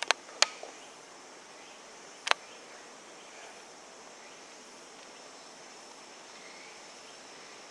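Three sharp taps or clicks, two close together at the start and a third a little over two seconds in, over a steady faint high-pitched drone.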